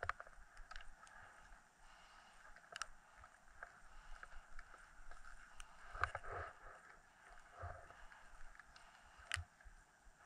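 Skis sliding and turning on packed snow: a faint steady swish of the edges over the snow, broken by a few sharp clicks and knocks, the loudest about six seconds in and near the end.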